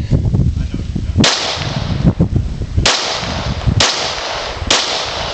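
Four 9mm pistol shots from a Glock 17 with a ported (compensated) Lone Wolf barrel, fired one-handed. The first comes about a second in and the last three follow about a second apart, each with a short echoing tail.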